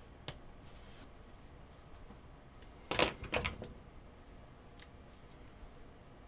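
A short metallic clatter about three seconds in, as one precision screwdriver is swapped for another from a metal-and-plastic set. There are also a few light clicks of a screwdriver tip on the small servo's case screws.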